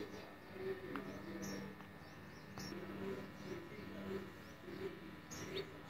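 Bird-like high chirps mixed with soft, repeated cooing calls, over a faint steady low hum.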